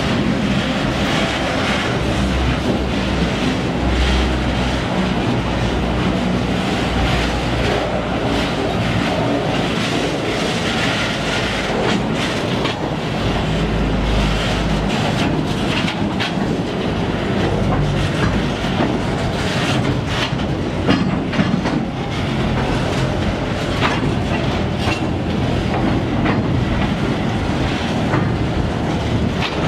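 Container flatcars of a freight train rolling past close by: a steady rumble of steel wheels on rail with repeated clicks as the wheelsets cross rail joints. A deep low rumble is strongest in the first half and eases after about fifteen seconds.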